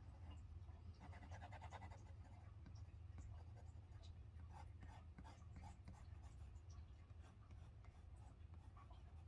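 Faint scratching of a Derwent Drawing Pencil shading on Strathmore drawing paper in short, irregular strokes.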